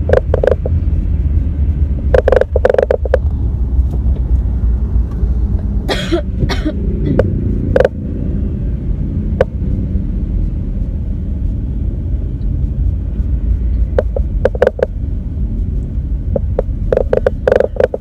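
Coughing in several short bouts of a few coughs each, over the steady low rumble of a car running.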